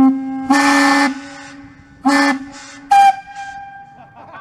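Air horn blowing on one steady pitch as a firing signal right after a launch countdown, with three louder, hissy blasts about half a second, two seconds and three seconds in, the last one short. A fainter, higher tone lingers until about four seconds in.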